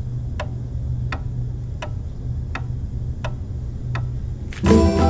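A clock ticking slowly and evenly, about three ticks every two seconds, over a low steady hum. Near the end a swish cuts in and music with bell-like notes begins.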